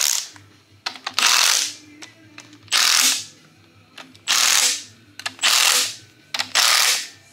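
Milwaukee M12 Fuel stubby cordless impact wrench hammering in short runs of about half a second, about six times, snugging the timing cover bolts into an LS engine block. It is set to a low power setting.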